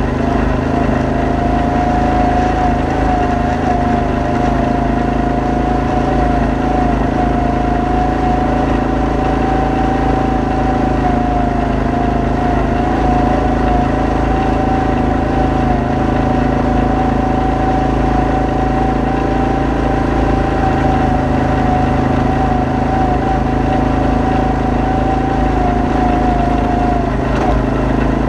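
ATV engine running at a steady cruising speed, its drone holding a nearly constant pitch with only slight wavering.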